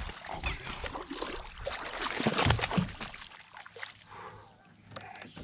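A hooked fish thrashing and splashing at the water's surface right beside a kayak, then lifted out of the water dripping. The splashing is loudest about two and a half seconds in and dies down after about three seconds.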